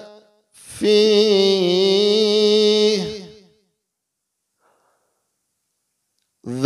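A man recites the Quranic word "fīhi" in a drawn-out chanted tone, holding one steady, slightly wavering pitch for about two and a half seconds before it fades.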